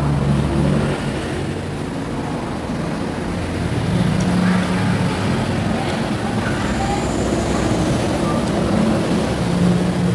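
Road traffic: a steady low engine hum from motor vehicles running, over road noise.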